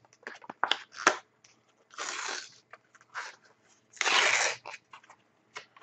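Panini Zenith Dare to Tear trading cards being ripped open by hand: two short tearing sounds, about two and four seconds in, with light clicks of cards being handled.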